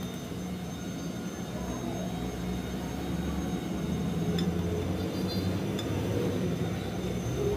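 A steady low mechanical hum that slowly grows louder, with a couple of light metal clicks about four and a half and six seconds in from a valve spring compressor being worked on a TVS XL100 cylinder head to seat the valve locks.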